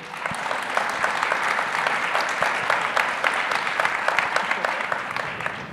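Audience applauding, many people clapping at once, fading away near the end.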